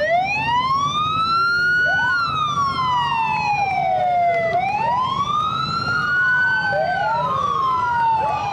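Several emergency-vehicle sirens wailing at once, each rising and falling slowly over a few seconds and overlapping out of step with the others, over a low engine rumble.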